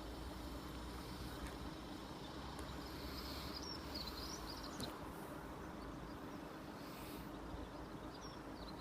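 Quiet outdoor background noise with a faint steady hum, and a few short bird chirps about three and a half seconds in and again near the end.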